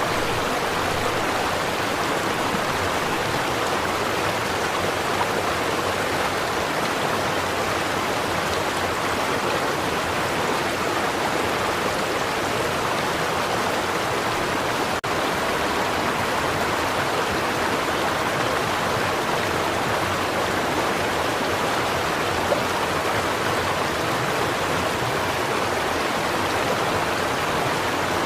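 A stream flowing: a steady, even rush of running water, dipping for an instant about halfway through.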